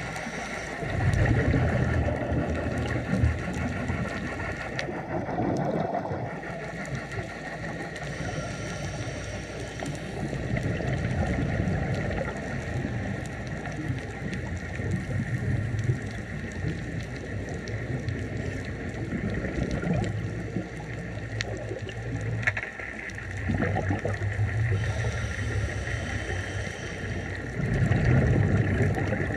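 Scuba diver's exhaled bubbles gurgling from the regulator in surges every several seconds, over a steady underwater drone.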